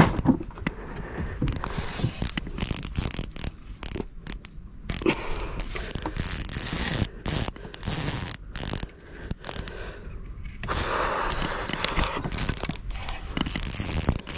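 Spinning reel's drag buzzing in repeated bursts, some a second or more long, as a hooked crocodile pulls line off the reel.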